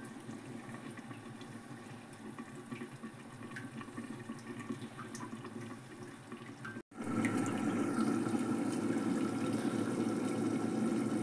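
Aluminium pressure cooker cooking on a gas stove with its lid sealed: a steady rushing hiss. About seven seconds in, after a brief drop-out, it comes back louder with a faint steady tone above it.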